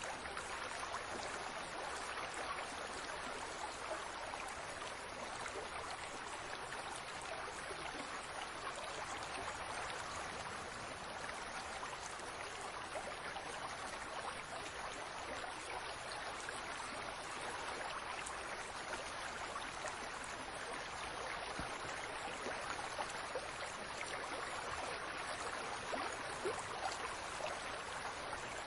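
Fountain water falling and splashing steadily, a constant dense patter of droplets.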